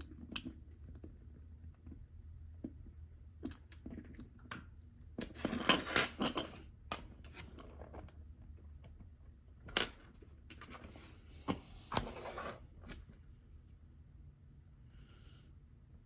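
Hands handling small 3D-printed plastic parts while gluing: scattered clicks and taps, with two spells of crinkly rustling, about five seconds in and again about eleven seconds in, over a steady low hum.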